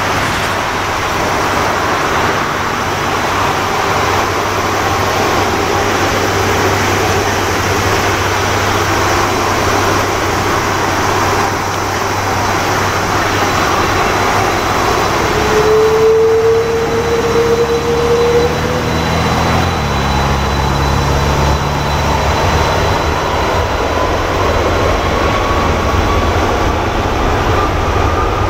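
Boeing 787-9 Dreamliner's turbofan engines running at taxi power as the jet taxis. A steady jet whine sits over a low rumble, and a second whine slowly rises in pitch through the second half. The rumble grows louder about two-thirds of the way in.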